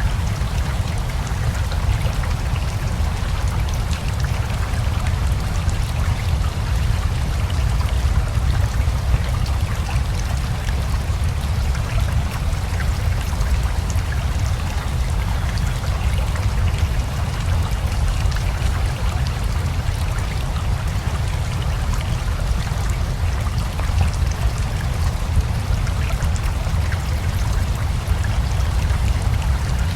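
River water running steadily with rain falling: a continuous rushing noise with a deep low rumble, and a fine patter of drops over it.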